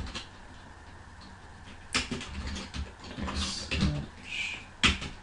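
Computer keyboard typing: a few sharp key clicks, one about two seconds in and one near the end, with fainter taps between them.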